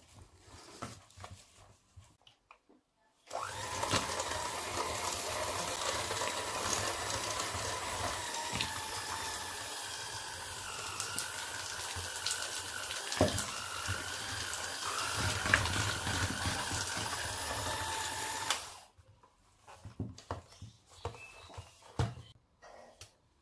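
Electric hand mixer creaming butter in a plastic bowl. It is switched on a few seconds in, runs steadily with a whirring hum for about fifteen seconds, then is switched off.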